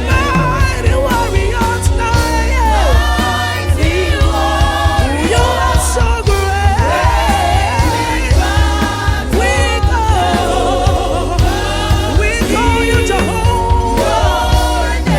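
Gospel choir singing a praise-and-worship song with instrumental backing and a heavy, steady bass line.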